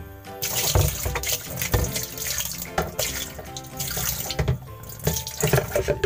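Water running and splashing into the plastic tub of a Polytron washing machine, over the pulsator hub, to flush out the dirt. It starts about half a second in and goes on steadily, with uneven splashes.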